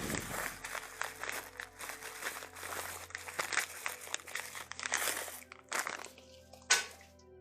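Clattering and scraping of metal hardware and hand tools being handled, with many short clicks, over soft background music; a single sharp knock near the end.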